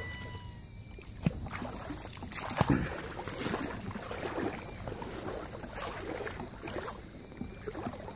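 Water sloshing and splashing irregularly around people standing in a reservoir, with two sharp knocks about a second in and just under three seconds in.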